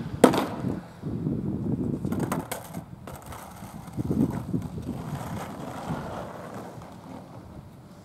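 Skateboard landing a flip trick with a sharp clack, then its wheels rolling on rough asphalt, with more board clacks about two and a half and four seconds in; the rolling fades away.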